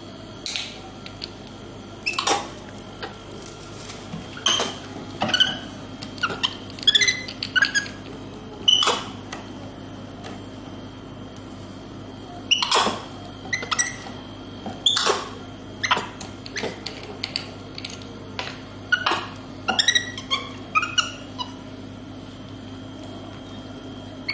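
Capuchin monkey giving short high squeaks and chirps, many falling in pitch, in irregular clusters with a few quiet seconds between them, over a steady low hum.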